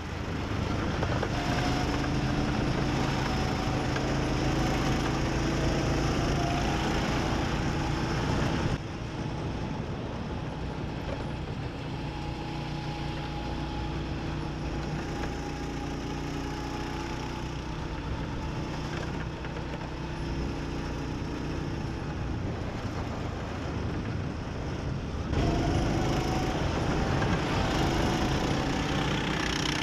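Go-kart engines running steadily as karts drive round the track, heard close up. About nine seconds in the sound cuts to a quieter, steadier engine hum, and the louder close-up running returns near the end.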